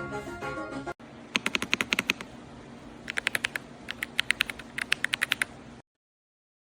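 Background music for about the first second. Then an Ajazz AK820 Pro gasket-mount mechanical keyboard is typed on in four quick bursts of keystrokes with short pauses between, over a faint steady hum. The sound cuts off suddenly near the end.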